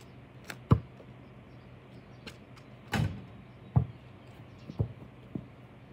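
Rubber basketball thudding five times as it is bounced and played at a hoop, with a low, hollow thump each time; the loudest and longest thud comes about halfway through.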